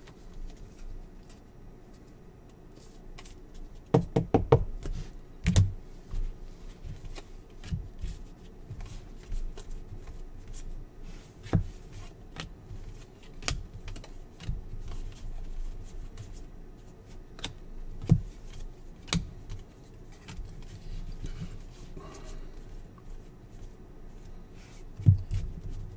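Basketball trading cards being handled and flipped through one by one: soft slides of card stock with scattered clicks and taps, a few of them louder.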